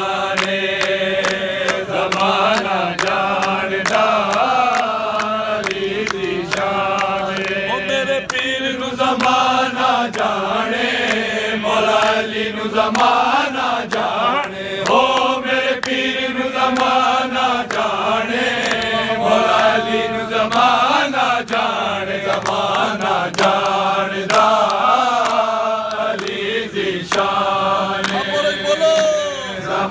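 A group of men singing a devotional chant in praise of Ali together, loud and unbroken, over a steady beat of sharp hand slaps about two to three a second.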